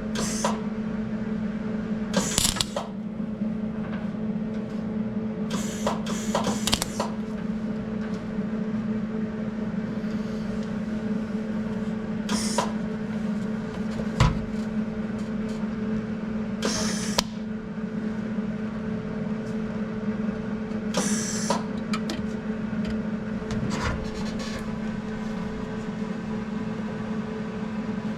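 MIG welder: a steady electrical hum with about eight short, crackling arc bursts, each under a second, as a beginner lays stop-start welds on a broken fastener.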